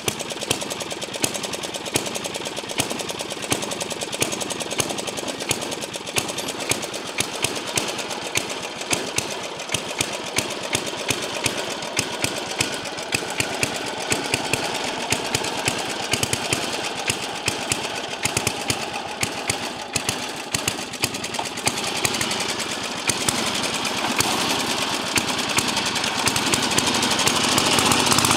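Old riding lawn mower's engine running under way, its exhaust a rapid, sharp, even beat. It grows louder over the last few seconds as the mower comes closer.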